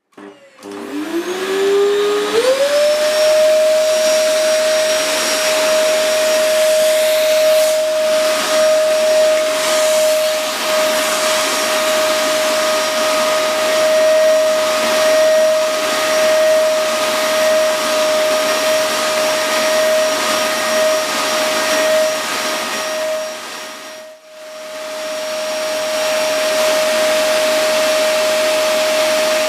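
Vacuum cleaner switching on, its motor whine rising in pitch over the first couple of seconds, then running steadily with a strong hiss of suction. The level dips briefly about three quarters of the way through, then comes back.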